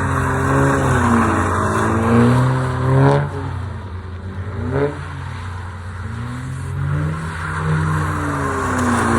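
Car engine revving, its pitch climbing and falling several times, with two quick sharp dips about three and five seconds in, over a steady hiss.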